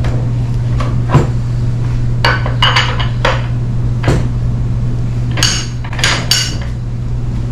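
Steel hex chisel bit clinking and knocking against the Bosch GSH 16 breaker hammer's tool retainer as it is fitted and seated by hand, with a steady low hum underneath. The sharp metal knocks come singly about a second in and four seconds in, and in quick bunches around two to three seconds and five to six seconds in.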